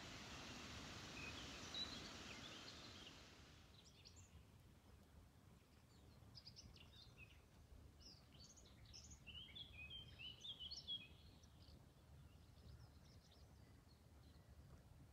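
Faint woodland ambience with small birds chirping. A soft hiss gives way after a few seconds to scattered quick, high chirps, which are thickest and loudest around the middle.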